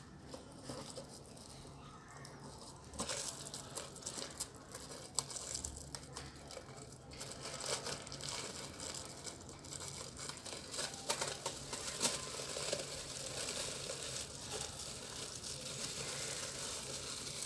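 Thin plastic bag crinkling and rustling in irregular crackles as it is worked loose from over the top of a plastic bottle.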